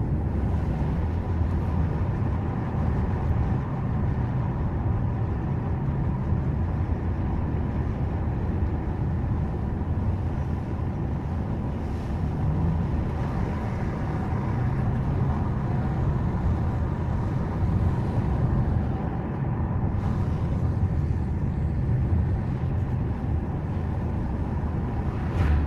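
Steady low rumble of engine and road noise heard inside a Subaru Forester's cabin while it drives, swelling slightly now and then.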